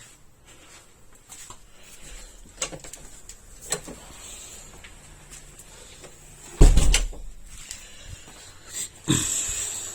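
Kitchen handling noises: a few light clicks and knocks, a heavy thump about two-thirds of the way through, and another knock followed by a brief rustling clatter near the end.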